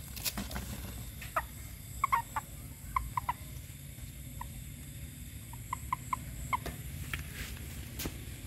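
Frogs calling: short pitched notes in quick groups of two to four, repeated about once a second over a steady low hum. A sharp click comes just after the start and another near the end.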